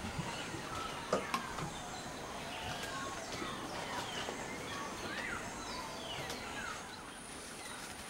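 Several birds calling with many short chirps and quick gliding whistles over steady background noise, with two sharp knocks about a second in.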